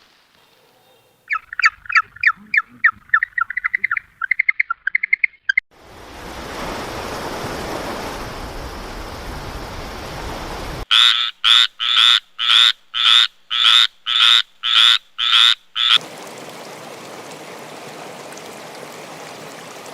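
A string of animal calls. First comes a fast run of short calls that rises in pitch toward the end, then a few seconds of rushing noise. After that, about ten loud calls come evenly spaced at roughly two a second, followed by a steady hiss.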